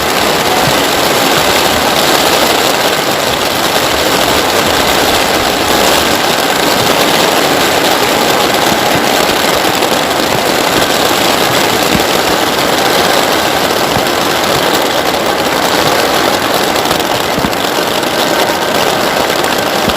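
Heavy rain falling steadily: a dense, even hiss that holds constant.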